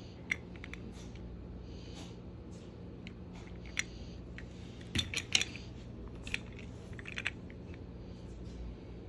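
Scattered light clicks and clatter of a plastic toy train flat car and its cargo pieces being handled, with a quick cluster of clicks about five seconds in.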